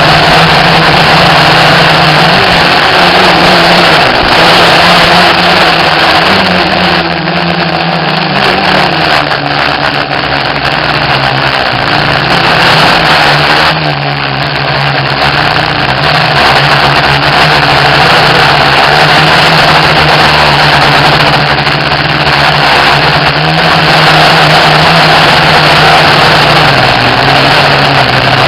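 FPV quadcopter's motors and propellers running in flight: a steady hum over heavy hiss, its pitch stepping up and down with the throttle, dipping a little in loudness in the middle.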